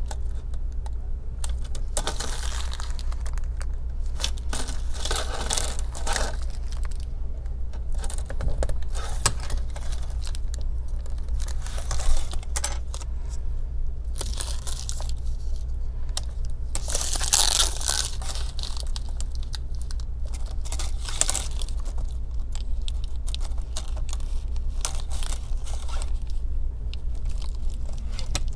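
Double-sided adhesive tape being pulled off its roll and pressed along a plastic laptop screen bezel, heard as irregular bursts of tearing and peeling noise over a steady low hum.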